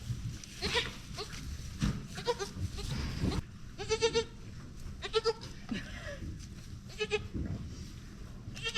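Newborn goat kids bleating, about six short, high, wavering calls spread a second or two apart, over low rustling.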